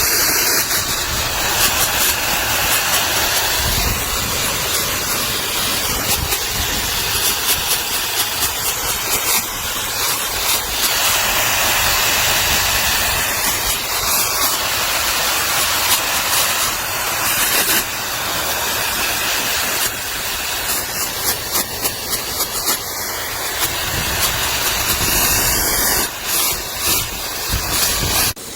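Handheld high-velocity pet dryer blowing air: a loud, steady rushing hiss that swells and dips as the air stream moves, with choppier dips near the end.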